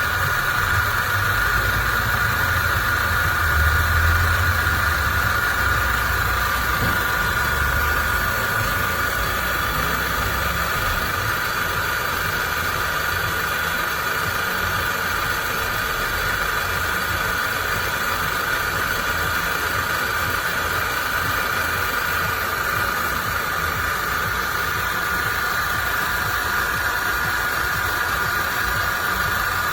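A motor running steadily with a constant whine and a low rumble, the rumble fading after about ten seconds.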